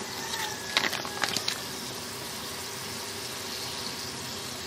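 Tomato sauce simmering in a pan, a steady soft bubbling hiss. A few sharp clicks come about a second in.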